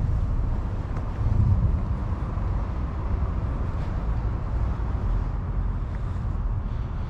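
Wind buffeting the microphone outdoors: a steady low rumble that swells briefly about a second and a half in, with faint small ticks above it.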